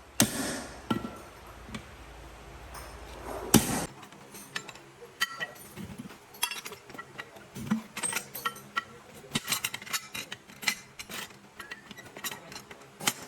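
Irregular metal knocks and clinks of hand tools being worked, with a loud ringing strike about three and a half seconds in.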